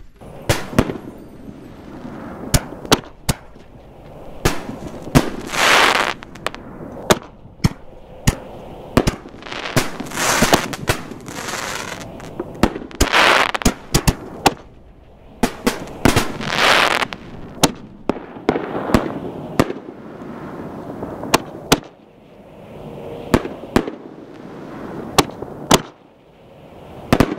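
Chroma XL reloadable canister artillery shells being fired one after another: a long run of sharp bangs from launches and bursts, with noisy spells of about a second after several of the breaks.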